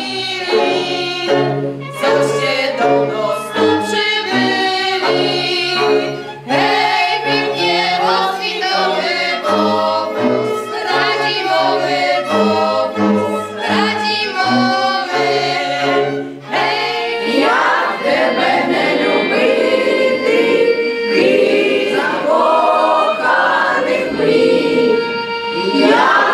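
Polish highland (góralski) folk music: fiddles play a lively tune over a low bowed bass line, with voices singing. About two-thirds of the way through, the instruments drop out and a group of voices carries on singing with long held notes.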